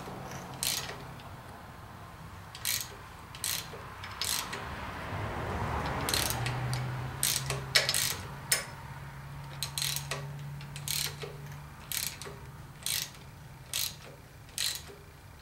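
Ratchet wrench clicking in short, spaced strokes as it turns the rocker-arm nuts on a Chevy 350 small-block head, adjusting the rockers to take up the pushrod slack.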